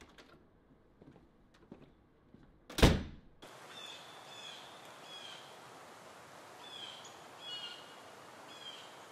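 A door slamming shut, one loud thud about three seconds in. After it, an outdoor ambience with birds chirping.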